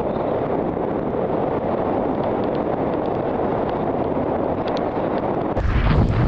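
Wind rushing over a helmet camera's microphone during a ski descent, a steady rushing noise. About five and a half seconds in it jumps abruptly to a louder, deeper buffeting rumble with a rasping edge.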